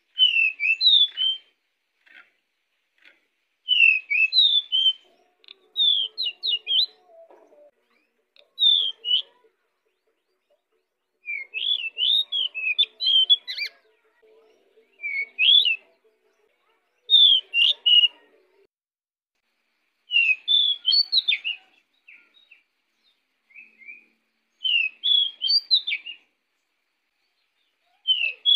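Pied bushchat (decu) singing: a short burst of quick, high, chirpy notes every two to three seconds, with brief pauses between them.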